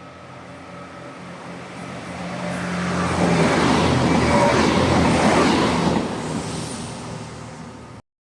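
A JR Shikoku Anpanman diesel train passes over a level crossing. The low engine drone grows louder as it approaches, then the rush and clatter of wheels on the rails is loudest for about three seconds in the middle. The sound fades and cuts off suddenly near the end.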